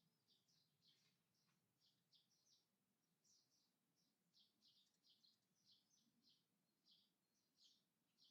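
Faint birdsong: short high chirps repeating about two or three times a second, over a faint low background hum.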